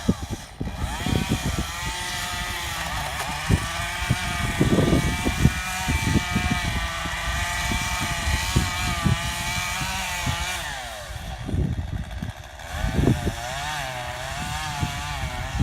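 Two-stroke chainsaw running at high revs, its pitch wavering up and down. The engine drops back about eleven seconds in and revs up again a couple of seconds later.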